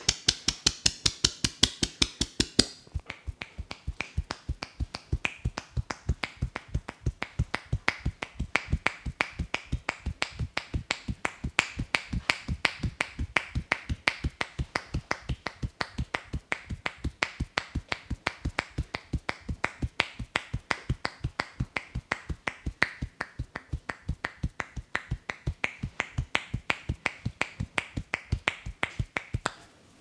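Rapid rhythmic tapping of hands on the head in an Indian head massage, several crisp clapping strikes a second without a break. The strikes are brighter for the first few seconds, then a little duller.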